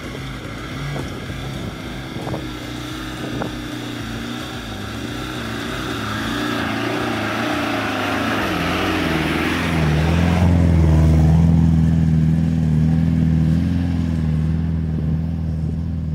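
Land Rover Discovery's engine working hard as it climbs a muddy hill track. It grows louder as the vehicle comes close, drops in pitch about two-thirds of the way through, and then holds steady as the vehicle pulls away uphill.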